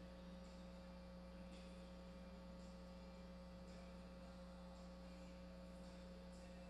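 Near silence with a steady electrical hum.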